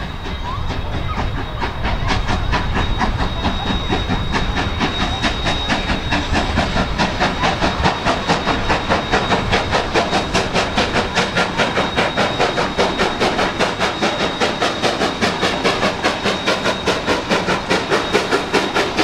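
Denver & Rio Grande Western No. 491, a K-37 2-8-2 narrow-gauge steam locomotive, working steam as it pulls a ten-car train up a grade. The exhaust chuffs become a clear, even beat of about three a second from about six seconds in, with the throttle only lightly open. A thin steady high whine runs underneath during the first half.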